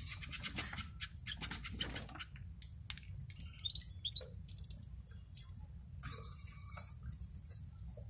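Caged goldfinches moving about a wire cage: many small clicks, scratches and patters, with a few short high chirps near the middle, over a low steady background rumble.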